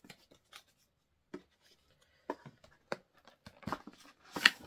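Scattered scrapes and taps of a printed cardboard box being handled and opened, with a sharper knock near the end.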